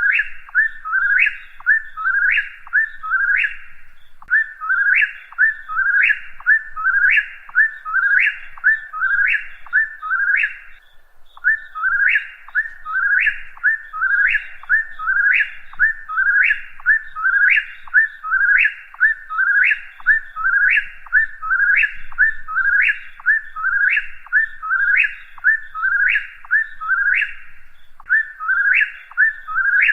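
A whip-poor-will singing its three-note 'whip-poor-will' song over and over, about one phrase a second, each phrase ending in a sharp rising note. There is a short pause about eleven seconds in.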